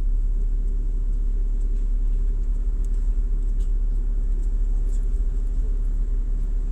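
A steady low rumble with a constant droning hum.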